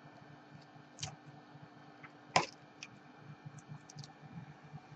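A few sharp clicks and small ticks of cracked iPad 2 digitizer glass being pried up and picked off the frame, the loudest about two and a half seconds in, over a faint steady low hum.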